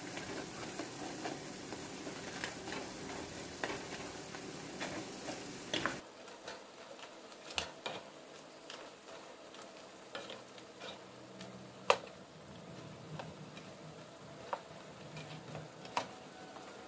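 Blue crabs sizzling in a nonstick frying pan as they are stirred and turned with a wooden spatula, the crabs being flipped so their other side cooks. The sizzling is dense for the first six seconds, then drops off abruptly, leaving quieter frying with scattered sharp knocks of the spatula against the pan, the sharpest about twelve seconds in.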